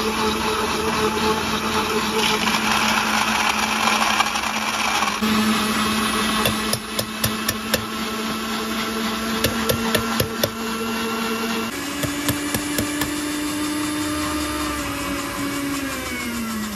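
Sujata Megaflow juicer-mixer motor running steadily while blending a mango and coconut mix. Its pitch steps up about two-thirds of the way through, then drops as the motor winds down near the end. In the middle there is a run of sharp knocks.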